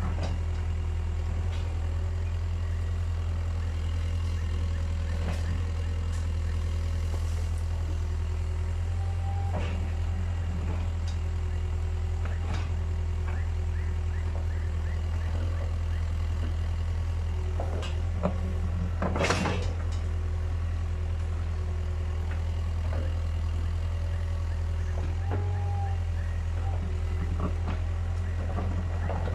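Caterpillar 305.5E2 mini excavator's diesel engine running steadily under work, with scattered short knocks as it digs, and one louder knock about two-thirds of the way through.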